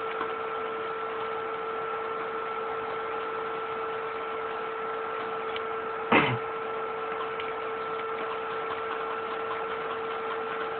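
Scanner stepper motors of a homemade PLC-controlled robotic arm giving a steady two-tone electrical whine while the arm works, with a single short thump about six seconds in.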